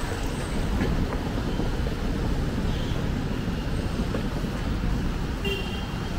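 Steady traffic noise of a busy city road, with a short high-pitched toot twice.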